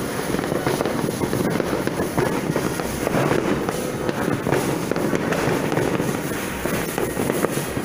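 New Year's Eve fireworks and firecrackers going off all around in an unbroken barrage: a dense crackle of many overlapping small bangs over a low rumble.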